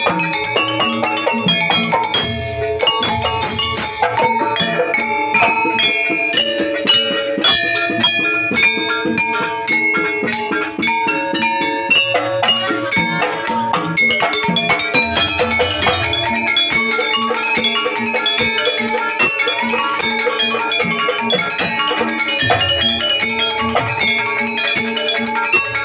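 Jaranan music played by a gamelan-style ensemble: struck metal keyed instruments play a busy, continuous melody over drums, and the deep low end swells in a few times.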